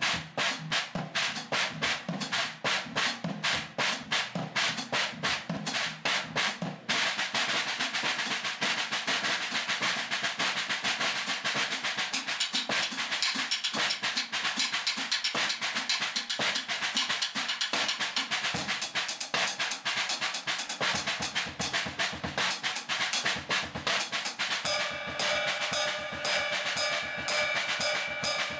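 Drum kit whose drums are muted with Evans SoundOff rubber pads, played with sticks in a fast rudimental snare study, recorded tinny with compressed dynamics. Quick, separate strokes give way about seven seconds in to a dense, continuous wash of strokes and cymbal, and near the end a steady ringing tone joins in.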